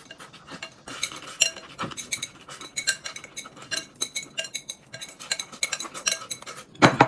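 Chopsticks clicking and scraping against a porcelain bowl as food is shoveled out of it, many quick taps with a faint ring of the bowl. A short loud pitched call comes right at the end.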